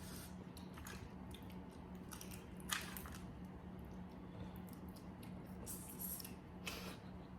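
Boiled crawfish being peeled and eaten: scattered shell crackles and wet squishing and chewing, with one sharper crack about two and a half seconds in.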